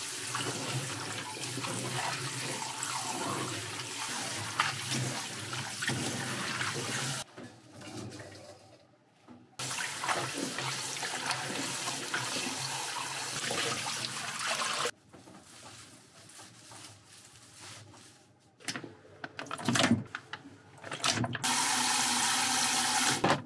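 Kitchen tap running into a stainless steel bowl in a sink while hands rinse bean sprouts and then leafy greens. The water stops twice, at about 7 and 15 seconds, leaving quieter stretches of small handling clicks, and it runs again near the end.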